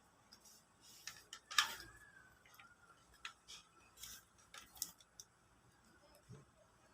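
Scattered light clicks and ticks from small objects being handled, with one sharper click about one and a half seconds in.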